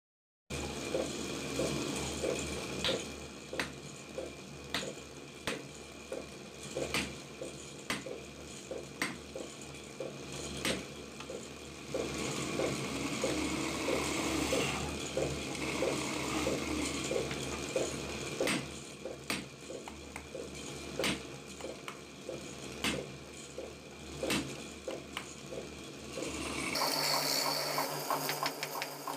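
Wood lathe running with a steady hum while a hand chisel cuts the spinning wood blank, with sharp clicks about once a second. Near the end the sound changes to a faster, higher-pitched rhythmic chatter as a rough log is turned.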